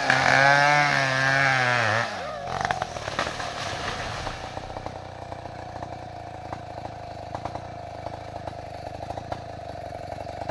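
Chainsaw cutting at full throttle through a large bayur trunk, its revs falling away about two seconds in as the cut goes through. Then a run of cracks and snapping as the tree falls, and the saw idling steadily with scattered crackles.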